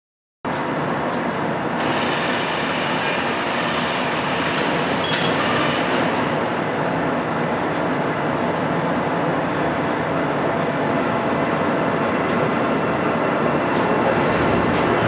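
Steady machine noise of a metalworking machine tool running, with a brief sharper clatter about five seconds in.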